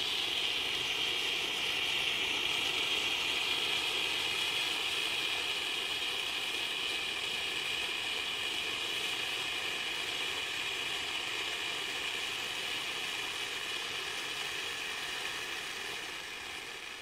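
A row of Vulcan Bengal fuego coloured flares burning with a steady hiss, which slowly thins and quietens as the flares burn out one by one.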